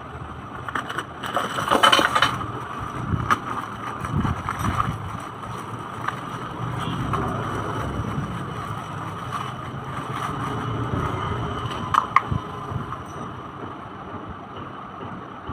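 Handling noise from unpacking ride-on toy car parts: plastic wrapping crinkling and rustling, with a few sharp clicks and clinks of metal and plastic parts, loudest about two seconds in and again about twelve seconds in.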